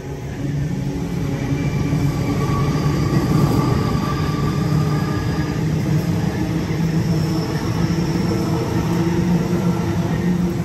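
Sydney Trains Waratah double-deck electric train passing close along the platform: steady rumble of wheels on rail with a traction-motor hum and whine, building in the first second and then holding loud.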